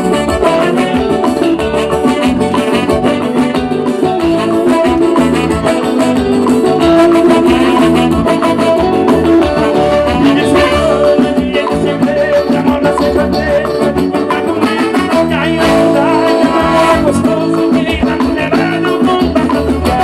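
Live forró band music played loud through the stage sound system: a steady dance beat with a male singer over it.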